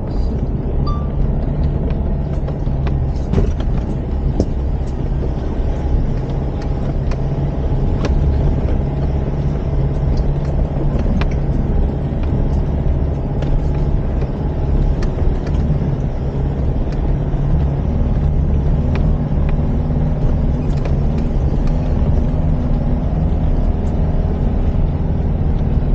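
Mitsubishi L200 pickup's engine running steadily under load while towing an off-road caravan, heard from inside the cab as a continuous low hum. Scattered short clicks and rattles come from the truck bouncing over the rough dirt track.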